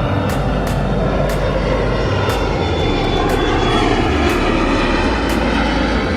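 A passing jet airliner's engines, a loud steady rushing noise that swells a little near the middle.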